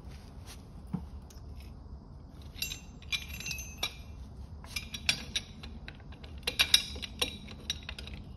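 Clinks and rattles of a steel wrench being picked up and set onto the pinion nut of a Ford Model A differential, metal striking metal in three short spells of clinking, the loudest about two-thirds of the way in.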